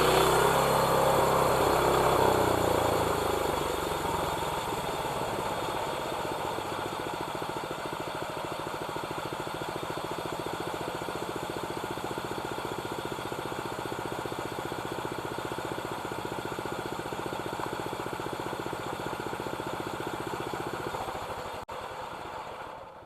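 Engine of a homemade band sawmill dropping from working speed to a steady idle over the first few seconds, then idling evenly until it stops near the end.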